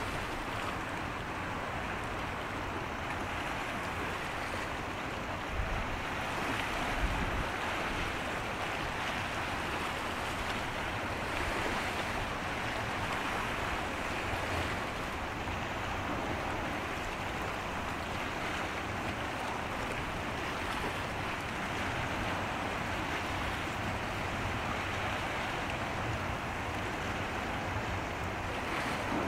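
Steady rush of wind and water by the sea, with a couple of wind gusts buffeting the microphone about six and seven seconds in.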